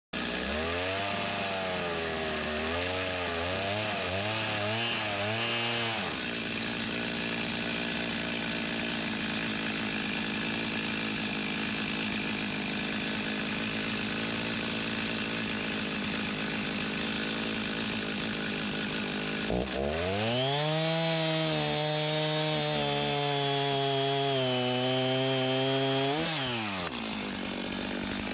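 Chainsaw engine running and cutting log wood, its pitch rising and falling repeatedly in the first few seconds, then running steadier. About two-thirds of the way in it revs up and holds under load for several seconds before dropping back.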